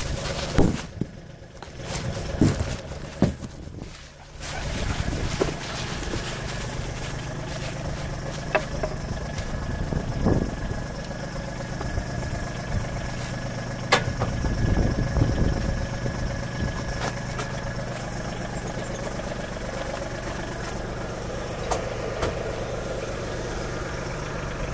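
Steady low motor hum, with rustling and a few knocks from the camera rig moving on the dog's back, most of them in the first few seconds.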